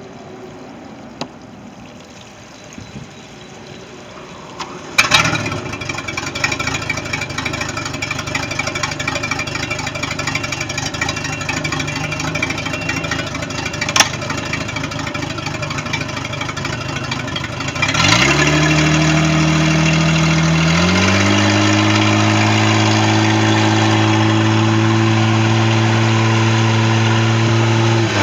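MerCruiser 4.3 V6 boat engine catching and starting about five seconds in, then running at a steady idle. About eighteen seconds in it is revved up, rising again a few seconds later, held at a steady higher speed, and dropped back at the very end.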